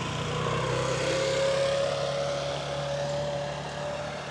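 An engine running close by with a steady low hum and a higher whine that rises slightly in pitch, growing louder about a second and a half in, then easing off as it passes.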